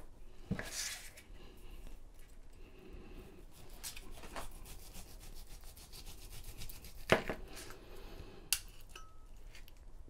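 Long kitchen knife sawing back and forth through a cooked beef roast held with a fork, a quiet rubbing scrape with small clicks. A sharp click about seven seconds in, and a smaller one a little later.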